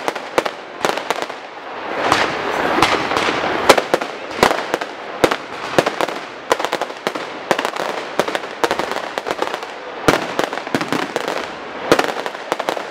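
Fireworks display: aerial shells bursting overhead, many sharp bangs in quick, irregular succession with a steady hiss between them.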